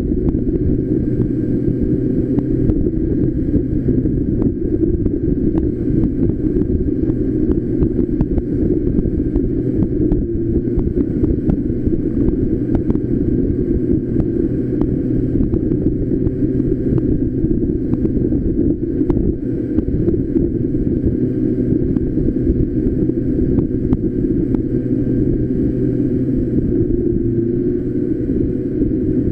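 Street go-kart's small engine running steadily while driving, under heavy wind rumble on the microphone. The level stays even throughout, with no changes in pace.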